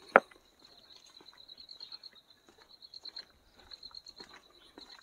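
Footsteps on a dirt and stone forest trail, as a steady series of light scuffs and ticks, with one sharp click just after the start. A steady high-pitched insect trill with a fast pulse runs underneath.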